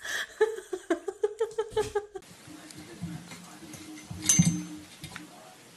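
A quick run of short pitched calls, then a cat's drawn-out yowl that swells loudest a little past four seconds.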